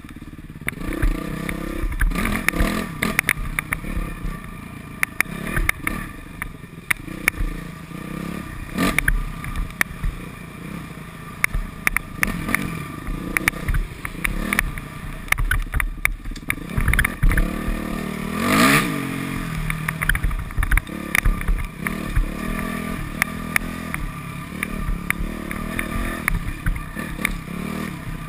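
Modified Yamaha YZ426F four-stroke single-cylinder dirt bike engine revving up and down as it is ridden, with a sharp rising rev about two-thirds of the way through. Frequent knocks and clattering run alongside the engine.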